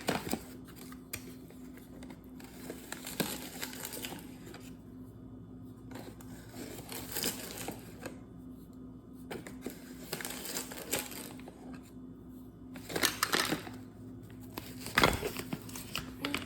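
Measuring spoon scooping and levelling white sugar and tipping it into a bowl: scattered scrapes, taps and granular rustles, with a couple of louder knocks near the end.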